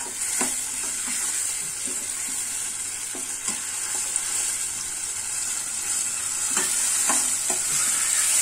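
Onion, tomato and green chilli masala sizzling in oil in a stainless-steel kadhai on low flame, with a steady frying hiss. A metal spatula stirs it, scraping and clicking against the pan now and then.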